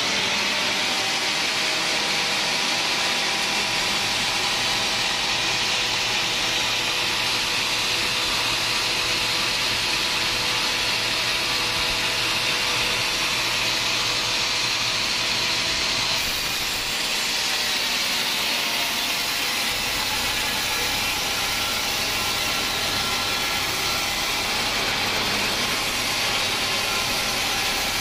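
Band sawmill running and cutting through an acacia hardwood log: a loud, steady hiss of the blade in the wood over the hum of the machine, with a brief slight drop just past the middle.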